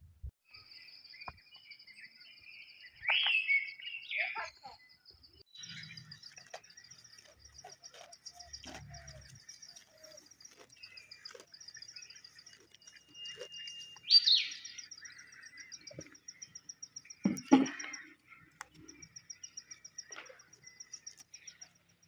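Birds calling and chirping outdoors over a steady, rapid high-pitched trill. Louder short calls come about three seconds in, around the middle and a few seconds later.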